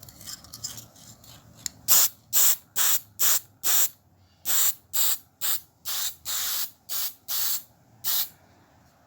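Aerosol spray can of clear lacquer hissing in a run of about a dozen short bursts, with a brief pause partway through, as a clear coat goes onto a painted knife handle.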